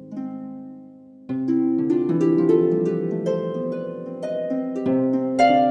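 Background music of plucked harp notes. After a quiet fading lull, a fuller, louder phrase of notes begins about a second in.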